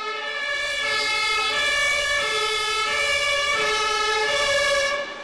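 Sirens, more than one sounding at once, their pitches stepping back and forth.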